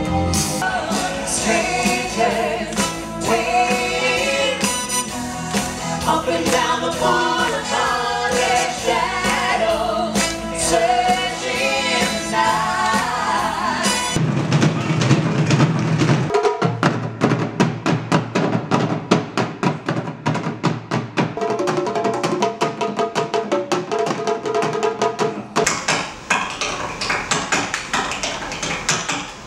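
Live stage-show music: a singer with a band. About fourteen seconds in it cuts abruptly to a solo percussionist playing a fast, even run of drum hits.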